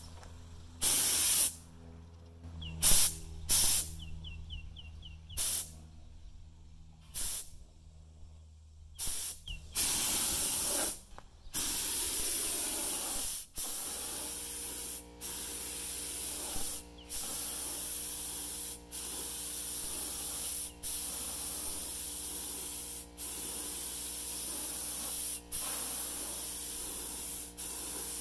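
HVLP spray gun hissing as paint is sprayed. It starts with short bursts of under a second, then from about twelve seconds in gives longer passes of about two seconds each, broken by brief gaps as the trigger is let off.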